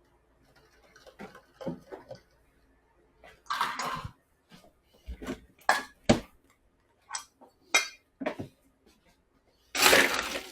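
Clinks, knocks and clatter of cups, utensils and espresso-bar equipment while an iced espresso drink is made: a run of separate short knocks, ending in a longer, louder rush of noise near the end.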